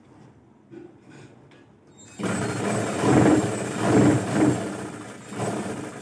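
Electric-motor sewing machine running, stitching fabric. It starts about two seconds in, after quiet rustling of cloth, and speeds up and slows in several surges.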